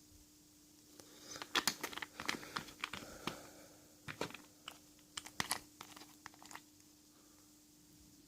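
Small sharp clicks and taps from handling the metal parts of a rebuildable vape atomizer, a scattered run of ticks lasting about five seconds, over a faint steady hum.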